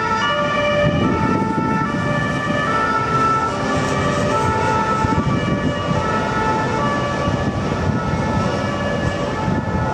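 Low-floor tram rounding a tight turning loop, its wheels squealing on the curve in several high tones that keep jumping in pitch, over the steady rumble of wheels on rail.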